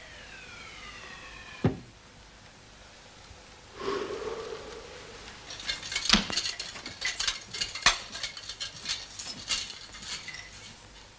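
Light metallic clinking and jangling, many quick clicks over about five seconds, beginning after a short dull sound about four seconds in. Before that, a sharp click with a tone that falls in pitch.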